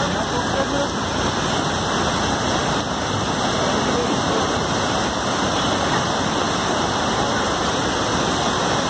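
Steady noise of heavy rain mixed with the rushing of a swollen, muddy river in flood.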